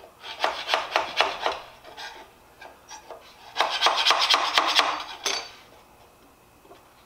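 Scraper tool scraping a freshly finished 3D print off the printer's bed, in two bouts of quick scraping strokes, the second longer and denser; the print is stuck fast to the bed.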